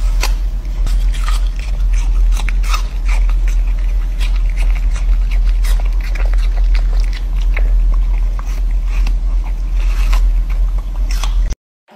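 Husky puppy biting and gnawing at a whole apple, its teeth making irregular short scrapes and crunches against the skin, over a steady low hum that cuts off shortly before the end.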